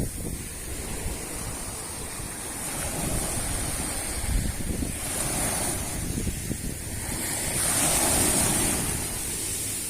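Strong wind buffeting the microphone, rumbling over the sound of sea surf washing on the shore. The noise swells louder about eight seconds in.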